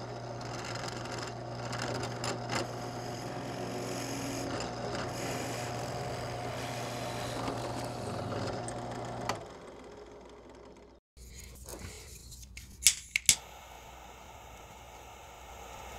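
Drill press motor running steadily with a low hum while its bit bores through a stack of sycamore lure blanks, then it stops about nine seconds in. Near the end, two sharp clicks.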